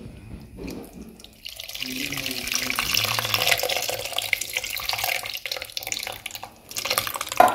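Tamarind water poured in a thin stream from a steel bowl into a clay pot of chopped tomatoes, splashing steadily. The pour starts about a second and a half in and stops about a second before the end.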